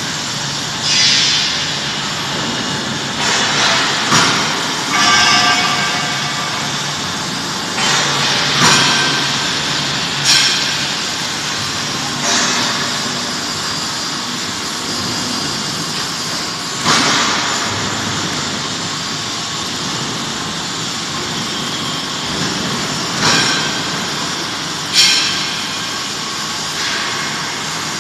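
Factory-floor noise in a robotic welding workshop: a steady machinery din broken every few seconds by sudden sharp noises that fade within about half a second.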